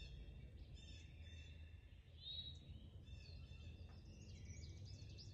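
Near silence with faint bird chirps repeating in the background.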